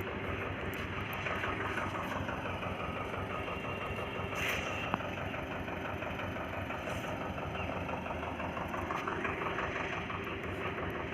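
Engine of road-construction machinery running steadily, a dense mechanical rumble, with one brief sharp clank about five seconds in.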